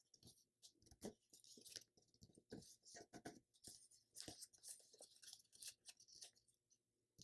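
Faint, irregular rustling and crinkling of a sheet of paper being folded and creased by hand, with scattered soft crackles.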